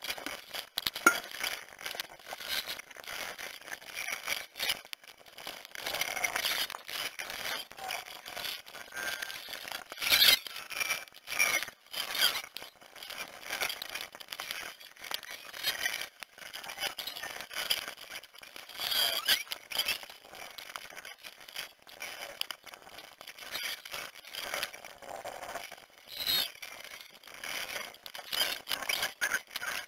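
Garage work on a car engine bay, sped up many times over: a jumbled, rapid clatter of tools and parts clicking, knocking and scraping, with high squeals.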